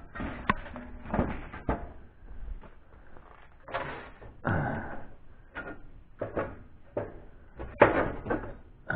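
Old objects being handled on a wooden shelf: an irregular string of knocks, clunks and short scrapes, the first ones as cast-iron skillets are moved about.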